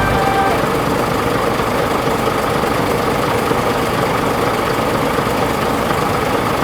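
Steady engine-like running noise, even throughout, with little deep bass.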